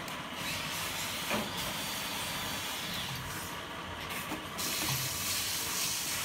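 Steady hissing noise from a resistance spot-welding machine joining steel wire rods into a grid, with a couple of faint clicks. The hiss thins out briefly about three seconds in, then comes back.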